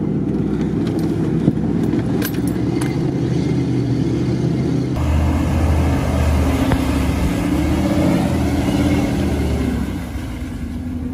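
A car engine running steadily, heard from inside the cabin, then, after an abrupt change about five seconds in, a Jeep Grand Cherokee's engine working as the SUV crawls through deep mud, with a stronger low rumble.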